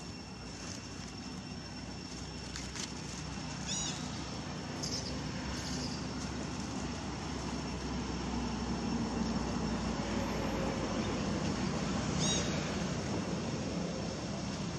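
Low rumble of a distant engine, running steadily and slowly growing louder.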